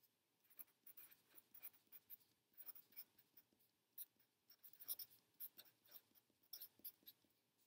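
Red felt-tip marker writing on paper: faint, quick, irregular scratching strokes as letters are formed.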